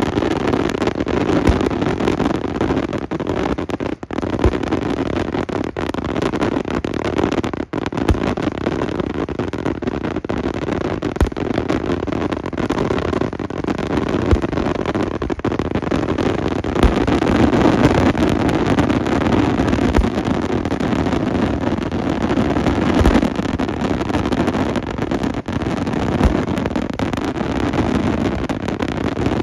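Daytime fireworks going off in a dense, continuous barrage: aerial shells bursting and crackling, with many sharp bangs standing out over a steady din.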